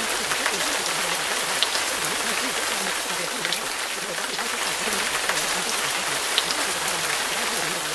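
Steady rain recording: an even hiss dotted with small drop ticks, with a faint, muffled voice murmuring beneath it.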